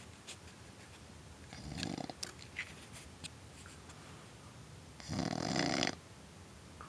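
Heavy snoring, "like a moose": two long snores, one about two seconds in and a louder, longer one around five seconds in, with a few faint clicks between them.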